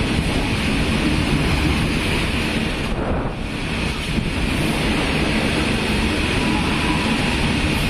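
Open-top freight wagons of an Indian Railways goods train rolling past close by: a steady, loud rumble of steel wheels on rail.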